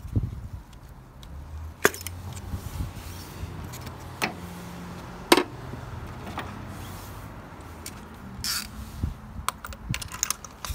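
Metal hand tools clinking: a spark plug socket, extension and ratchet being handled over the engine, with a few sharp metallic clicks spread through and a quicker run of clinks near the end as the ratchet is picked up. A low steady hum sits underneath for several seconds mid-way.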